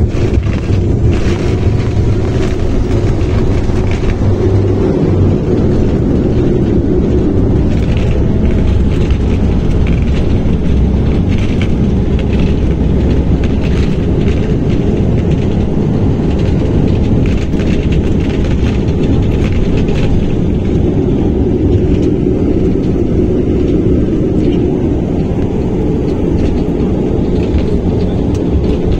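Turboprop airliner's engines and propellers running loud, heard from inside the cabin, with the landing gear wheels rumbling on the runway during the landing roll.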